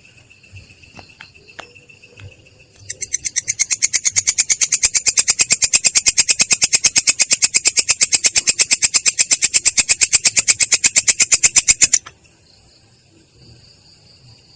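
A singing insect's call, of the kind used as a masteran for songbirds: a loud, fast train of dry, buzzy pulses, about nine a second. It starts about three seconds in, runs for about nine seconds and stops abruptly. A fainter, steady high trill continues underneath.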